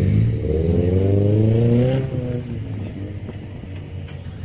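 Off-road vehicle engine revving: the revs climb for about two seconds, then ease off and the engine runs quieter.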